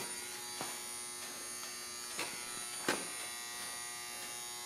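A steady electrical buzz with a whine of many fine tones. A few light knocks come through it, the loudest about three seconds in.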